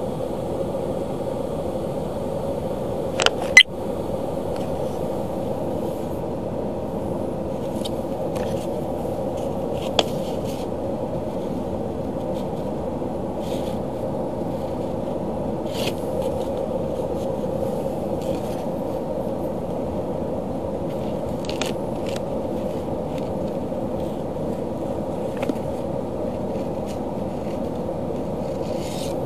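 A steady hum inside a car cabin, with a few sharp clicks and scrapes from handling. The loudest is a quick double click about three seconds in.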